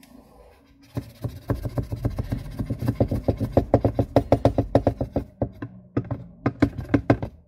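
Fast, fairly regular plastic clicking and tapping, about six to eight clicks a second over a low hum, starting about a second in, as toner powder is poured from a plastic bottle into the hopper of a Canon 337 toner cartridge.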